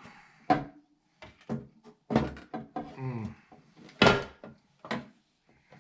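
Short knocks and clicks as a computer's all-in-one liquid CPU cooler is shifted and fitted inside the case. The loudest knock comes about four seconds in, and there is a brief murmured voice a little after two seconds.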